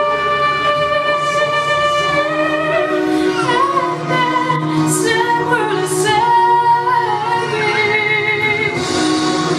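Young woman singing a song into a handheld microphone, amplified, holding long notes between shorter sung phrases.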